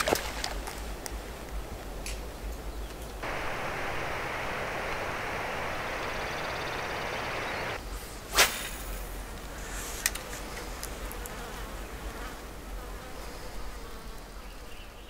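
Outdoor lakeside ambience with flying insects buzzing. A denser steady hiss runs from about three to eight seconds in, and a few sharp clicks stand out, the loudest just past the middle.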